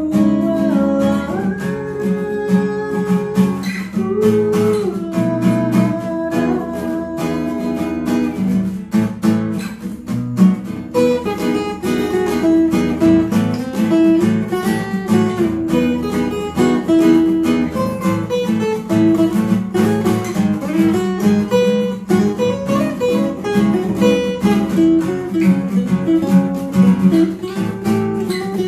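Acoustic guitar being strummed and picked, playing the song's chords and melody.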